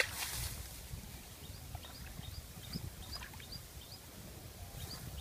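A splash of water as a person wades in muddy shallows, then a bird chirping a short, high, rising note over and over, about three times a second, over faint outdoor background noise.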